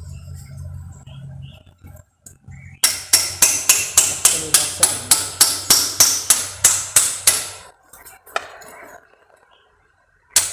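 A hammer tapping a motorcycle's rear axle home through the wheel hub: a quick run of about twenty sharp metal strikes, roughly four a second, then a couple of single knocks.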